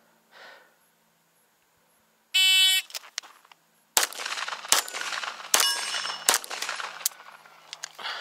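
A shot-timer start beep, then, from about a second and a half later, a string of rapid pistol shots from a Springfield 1911 DS Prodigy, under a second apart, with steel targets clanging and ringing on hits.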